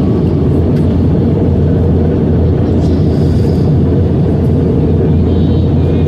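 Steady low rumble of a jet airliner in flight, engine and airflow noise as heard inside the passenger cabin.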